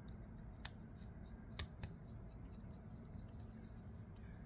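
Light clicks and ticks of small metal knife parts and screws being handled, with two sharper clicks about two thirds of a second and a second and a half in, over a steady low hum.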